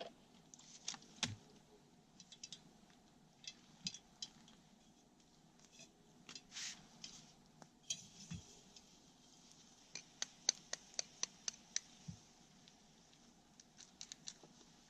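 Faint scattered clicks and light clinks of small camp cooking gear being handled, with a quick run of sharp ticks from about ten seconds in.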